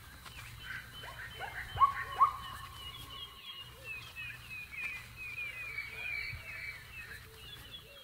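Several wild birds chirping and calling, with two sharp rising notes standing out about two seconds in, over a low steady hum.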